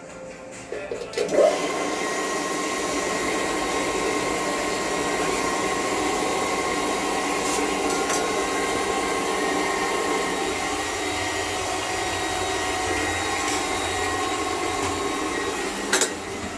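Household electric water pump switching on about a second in and running steadily, a motor hum with a steady whine over it. A click near the end.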